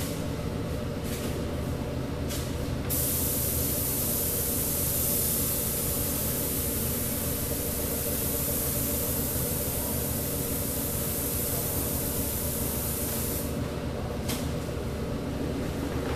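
Compressed-air paint spray gun spraying a car body: a couple of short bursts of hiss, then one long steady hiss from about three seconds in until near the end, and another short burst after it. A steady low machine hum runs underneath.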